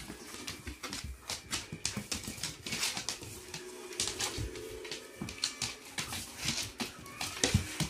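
A white husky and a small black dog play-fighting on a board floor: a string of irregular scuffles, paw and claw clicks and mouthing noises, with small dog sounds among them.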